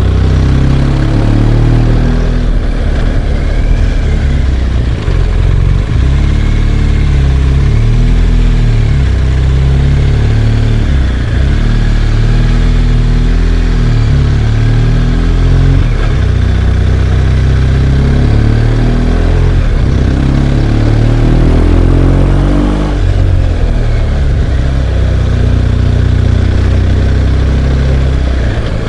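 BMW R1200GS Adventure's boxer twin engine under way, its pitch rising and dropping back several times as the throttle is opened and eased off.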